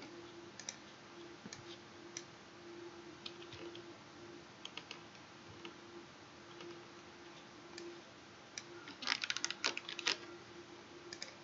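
Scattered clicks of a computer keyboard and mouse, with a quick run of keystrokes about nine seconds in. A faint steady hum underneath.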